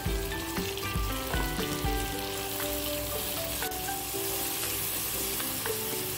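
Ground chili sambal with a little added water sizzling in oil in a wok while it is stirred with a wooden spatula, over background music.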